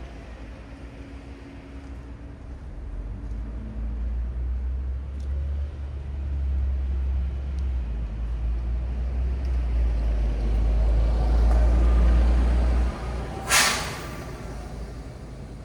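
A heavy diesel vehicle's deep engine rumble grows louder for about ten seconds, then drops away suddenly, followed by a short, sharp hiss of air brakes.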